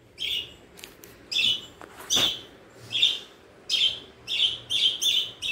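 Wooden spatula scraping across a nonstick kadai as a simmering masala gravy is stirred: about ten short, squeaky scrapes, coming faster toward the end.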